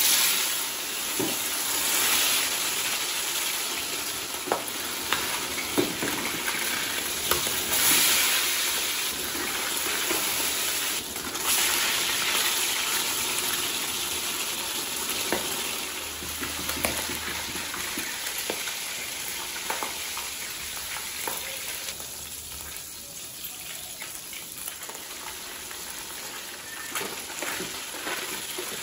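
Pomfret steaks frying in hot oil in an aluminium pot: a steady sizzle with scattered pops, loudest in the first dozen seconds as the steaks go into the oil, then easing off.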